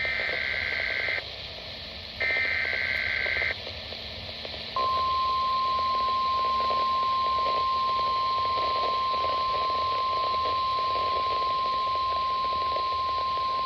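Weatheradio Canada alert signals heard through a radio receiver over hiss: two short bursts of the SAME digital header's warbling data tones, then, about five seconds in, the steady single-pitch 1050 Hz warning alarm tone starts and holds. They mark the start of a required monthly test alert.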